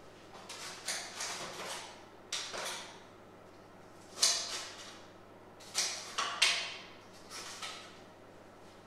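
A kitchen knife chopping leek on a chopping board: several short runs of quick cuts, each blade stroke a sharp knock, with brief pauses between the runs.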